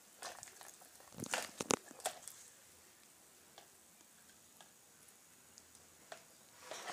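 Metal spoon stirring and breaking up instant noodles in hot water inside a plastic jug: a quick run of clicks and knocks in the first two seconds, then only faint occasional taps.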